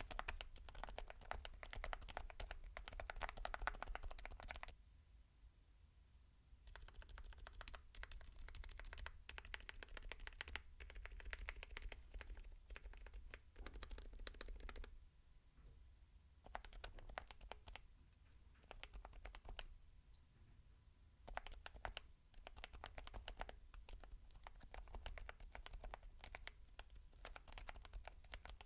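Typing on a mechanical keyboard fitted with Geon HG Yellow silent tactile switches: quick, muted keystrokes in runs of several seconds, with a few short pauses between them.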